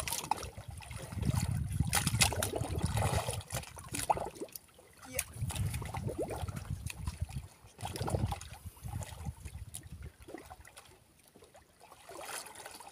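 Water lapping and sloshing against the hull of a small wooden fishing boat, in uneven swells, with a few light knocks.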